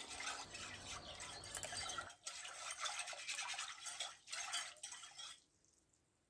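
Yeast being stirred into lukewarm water in a ceramic bowl to dissolve it: a quick, light swishing and scraping of a small utensil against the bowl. It stops about five seconds in.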